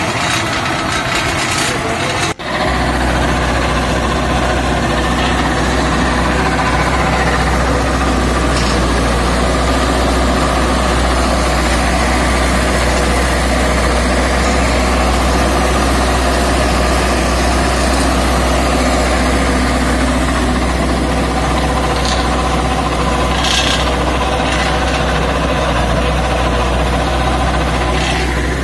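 Tractor engine running steadily while working a super seeder, a continuous deep hum. An abrupt break about two seconds in, after which the hum carries on.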